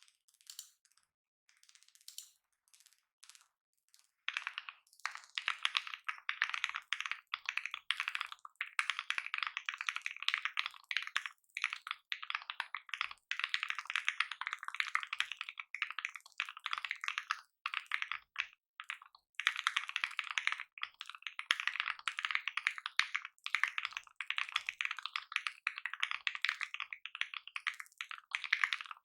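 Custom mechanical keyboard with lubed switches on a polycarbonate plate being typed on: a few single keystrokes, then fast continuous typing from about four seconds in.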